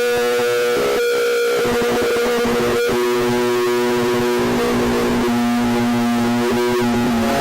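Music with long held notes that change every couple of seconds, at an even, steady loudness.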